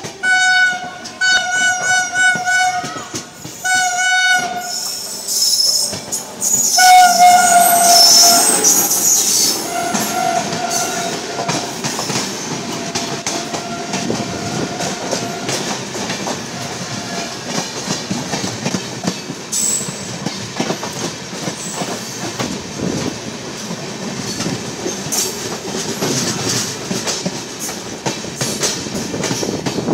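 Train horns sounding in several blasts, with a longer, louder blast about seven seconds in. After that comes the steady rush and rail clatter of two express trains crossing at high speed, heard from an open coach doorway as the other train's coaches go by close alongside.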